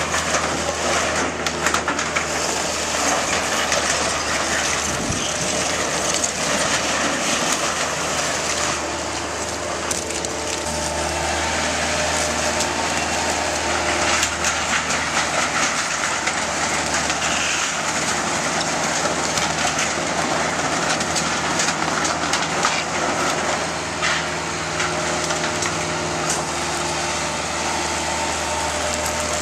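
Bobcat 753 skid-steer loader's diesel engine running steadily while the machine breaks up and crushes a shed's wooden framing and corrugated metal sheeting, with continual cracking, snapping and scraping of wood and metal.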